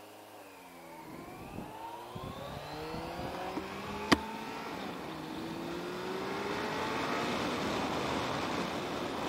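Kawasaki Concours 14's inline-four engine with a Delkevic slip-on exhaust accelerating, its pitch rising. About four seconds in there is a sharp click, after which the pitch drops and climbs again, as in an upshift. Wind noise builds as the bike gains speed.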